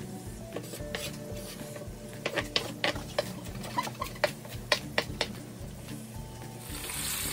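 Chef's knife chopping diced onion on a bamboo cutting board: a run of sharp, irregular knocks on the wood. Near the end the sound cuts to the sizzle of ground turkey frying in a pan.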